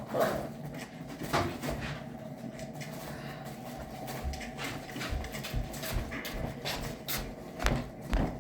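Irregular clicks, knocks and rustling from handling the pen's bedding and gear, with a few louder thumps near the end.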